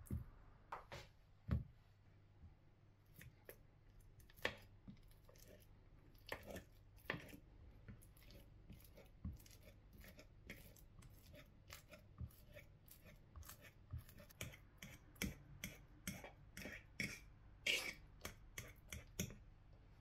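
Metal fork mashing overripe bananas in a wooden bowl: irregular light taps and clicks of the fork on the bowl with soft squishing, coming faster in the second half. A couple of duller knocks near the start.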